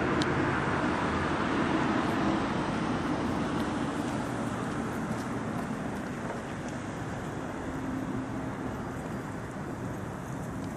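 A car drives past, its engine and tyre noise loudest in the first couple of seconds and then fading into steady street traffic noise.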